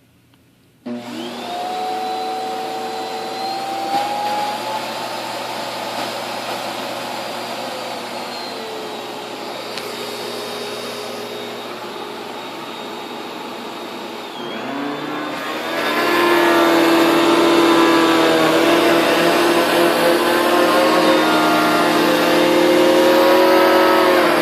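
Kenmore Progressive vacuum cleaner switched on about a second in, its motor whining up to speed and running steadily. About two thirds of the way through, its pitch dips and it then runs louder, with a fuller hum.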